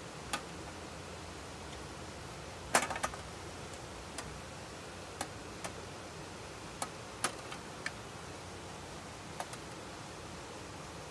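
Light, scattered clicks and taps as wooden skewers and rolled chicken breasts are handled against a stainless steel tray and wire rack, the sharpest cluster about three seconds in, over a steady faint hiss.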